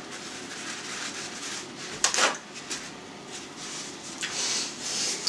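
Paper towel rustling and crumpling in a person's hands as they are wiped. A sharp, louder rustle comes about two seconds in, and more rustling follows near the end.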